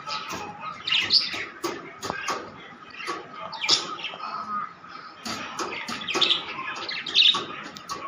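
A flock of pet budgerigars (Australian parrots) chirping and chattering in a quick, continuous run of short calls, with louder squawks about one, four and seven seconds in.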